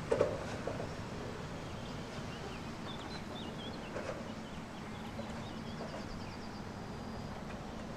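Riverside ambience: a steady low hum of distant city traffic, with small birds chirping in the middle and a short trill near the end. Two short low sounds come at the start and about four seconds in.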